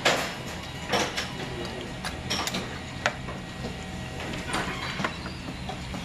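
Eating sounds at the table: scattered short clicks and knocks of a metal spoon against an earthenware soup pot, with chewing, over a steady low hum.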